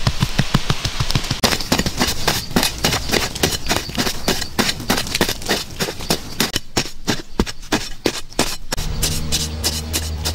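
A wooden pole tamping a sand floor, then a pointed wooden stick striking into soil to dig a pit: quick rhythmic strikes, about five a second, low thuds at first and sharper after about a second and a half. Near the end a steady low hum joins in.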